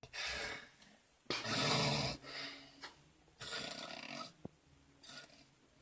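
A sleeping person snoring, four noisy snoring breaths with the loudest about a second and a half in and the last one fainter.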